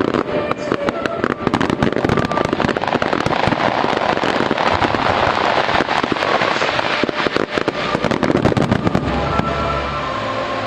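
Fireworks barrage: a rapid, dense volley of aerial shell bursts and crackling, with music playing underneath. About nine seconds in, the bursts thin out and the music comes forward.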